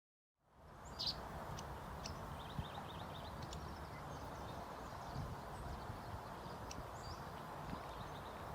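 Small birds chirping in short, high calls scattered throughout, over a steady rushing background noise; the sound starts abruptly about half a second in.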